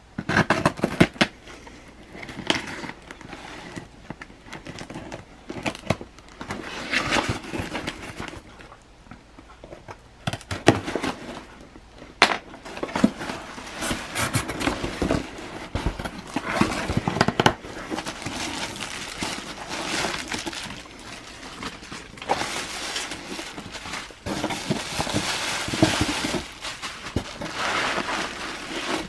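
A taped cardboard box being opened by hand: packing tape pulled off and cardboard flaps scraping and rustling, with many irregular crackles and snaps. Near the end comes a denser stretch of rustling as the bubble wrap inside is exposed.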